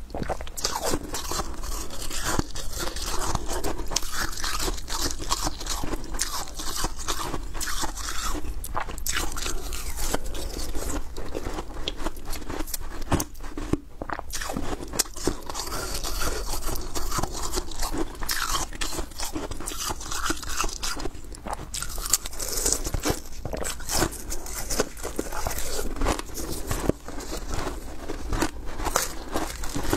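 Thin balloon ice being bitten and chewed, a dense run of sharp crunches and crackles, with shards of the thin ice shell crackling as they are handled.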